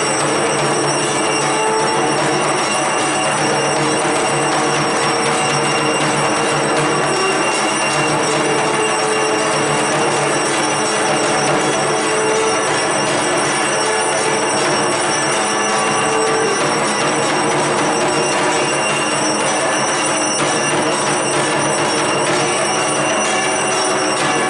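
Dense, continuous ringing and clanging of puja bells during worship, loud and unbroken.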